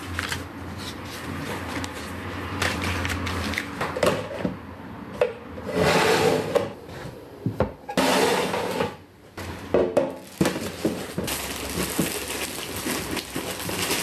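Household objects being handled and cleaned: irregular knocks and clatter of containers set down and moved, mixed with brief rubbing and scrubbing noises. A low hum stops about three and a half seconds in.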